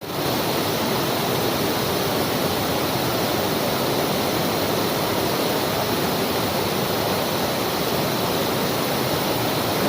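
Waterfall with water rushing and splashing in a steady, even rush of noise.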